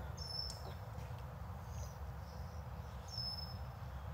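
Faint background ambience: a steady low rumble, with two short high-pitched chirps about three seconds apart and a fainter one between them.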